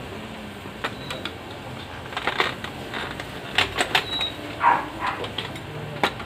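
Plastic clicks, knocks and brief scraping as a Brother TN2380 toner cartridge is fitted into its DR2355 drum unit, with scattered short knocks throughout.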